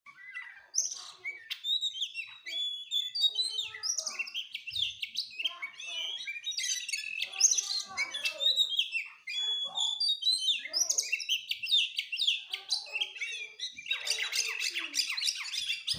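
Oriental magpie-robin singing a long, varied song of whistled phrases that glide up and down, with hardly a pause.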